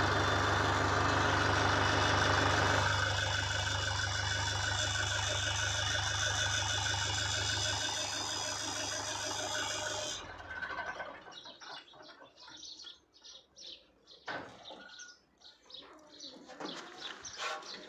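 Tractor engine running steadily, inflating a giant balloon through a hose on its exhaust, with a steady low hum. About ten seconds in the engine sound stops abruptly, leaving only faint scattered sounds.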